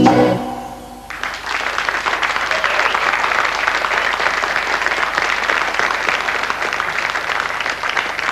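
The band's last chord stops in the first half-second and rings away. About a second in, a studio audience starts clapping, and the applause goes on steadily.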